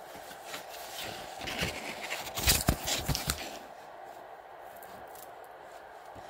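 Handling noise from a handheld phone being moved about: a cluster of bumps, rubs and scrapes in the first half, then only a steady faint hum.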